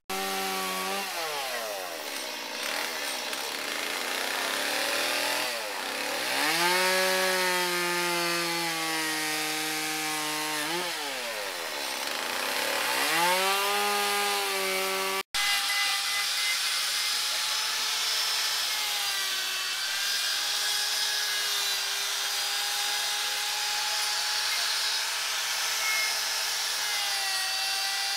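Chainsaw carving wood: the engine revs up and down repeatedly as the saw bites and lifts off. After an abrupt break about halfway through, it runs steadily at high revs while cutting, with only small wavers in pitch.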